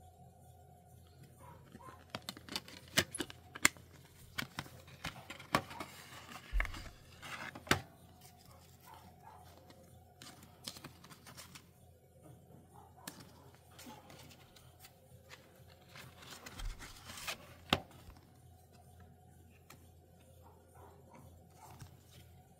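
Hands handling a plastic CD case and photo cards: sharp clicks, taps and rustling in two busy stretches, with a couple of brief low thumps, over a faint steady hum.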